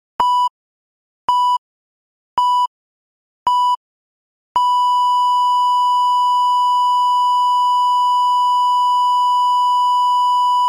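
Heart-monitor sound effect: four short electronic beeps on one steady pitch about a second apart, then the same tone held unbroken as a flatline from about four and a half seconds in, signalling death.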